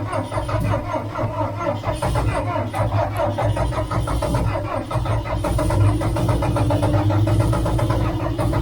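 John Deere 410 backhoe's diesel engine being cranked in bitter cold, with a steady, rhythmic chugging. A tone rises from about halfway through.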